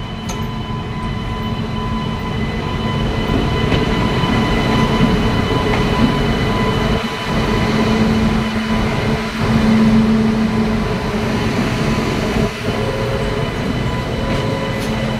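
WAG-9HC electric freight locomotive rolling slowly past at close range: a steady rumble on the rails with a continuous high whine over it, growing louder as it comes alongside.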